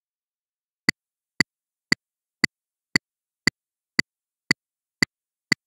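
Metronome clicks from drill-software playback, sharp and evenly spaced at about two a second (roughly 115 beats a minute), starting about a second in: a steady count-in ahead of the drill's music track.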